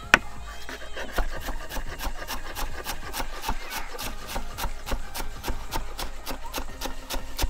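Kitchen knife chopping fresh coriander on a chopping board: quick, even strokes, about four a second.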